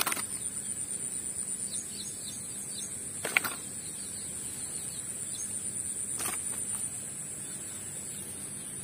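Outdoor rural ambience: a steady high-pitched insect drone with faint bird chirps, and a few short clicks as the caught snakehead and lure are handled, the loudest about three and a half seconds in.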